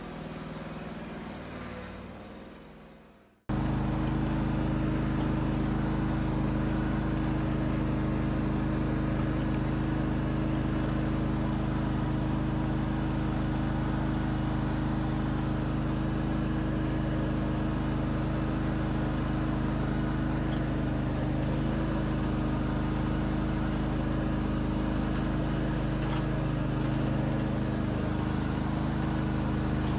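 John Deere LX188 lawn tractor running steadily under its 17 hp Kawasaki engine, with a steady whine from its Tuff Torq hydrostatic transmission, the sign of air still caught in the transmission after the oil change. The sound cuts in abruptly about three seconds in, after a fading sound.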